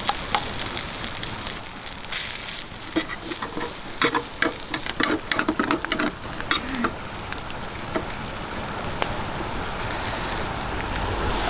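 Rice sizzling as it fries in leftover spicy sauce in a small square steel pan, with a steady hiss. Metal chopsticks click and scrape against the pan as the rice is stirred, most often between about two and seven seconds in.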